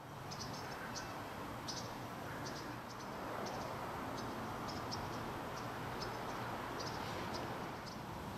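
Short high-pitched chirps, irregularly spaced at about one or two a second, over a steady hiss.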